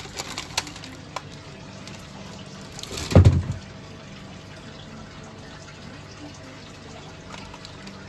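Water trickling and bubbling over a steady low hum, typical of running aquarium filters and air pumps. A single short low thump about three seconds in is the loudest moment.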